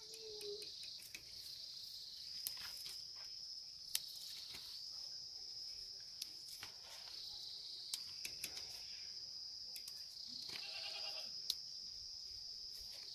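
Insects chirring steadily in a high, even tone, with a few faint sharp snaps as marigold flower heads are picked by hand. A faint bleat comes about ten seconds in.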